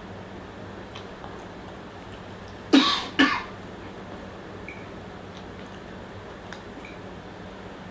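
A person coughing twice in quick succession, two short coughs about half a second apart.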